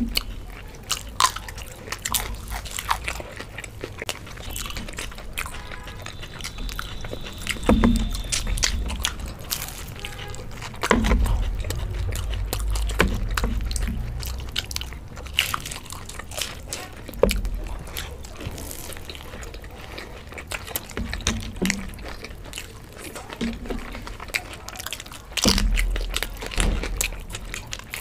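Close-up eating sounds: biting and chewing fried samosas and raw green chillies, with many short, crisp crunches. There are a few dull low thumps, the loudest about eight seconds in, about eleven seconds in, and near the end.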